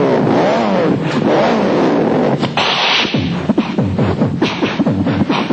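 A man's voice imitating a car being driven: wavering engine-like revs, a short hiss about two and a half seconds in, then a quick run of falling sweeps and clicks.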